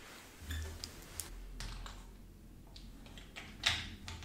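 Scattered clicks, rustles and light knocks from handling an LED neon wall lamp and its cable while moving to hang it, with a low thump about half a second in and a louder knock near the end.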